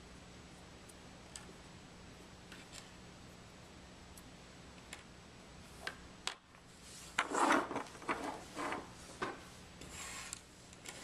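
Small sampler parts and seal rings being handled and set down on a tabletop: a few faint clicks, then from about seven seconds in a run of louder clatter and rubbing, with one more burst near the end.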